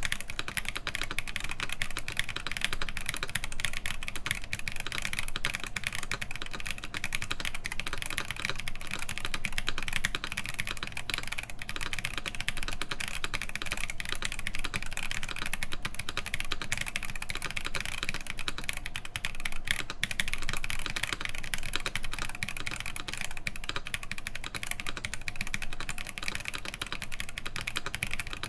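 Continuous fast typing on a Matrix Lab IM+ Mr Hat mechanical keyboard with Holy Panda tactile switches in an aluminium full plate, under GMK doubleshot ABS keycaps: a steady run of keystroke clacks.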